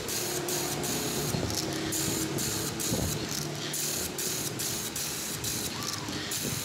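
Electric chainsaw-chain sharpener grinding a saw chain's cutters: a steady motor hum under a hissing grind of the abrasive wheel on steel, which comes and goes in short spells as the wheel is lowered onto the teeth.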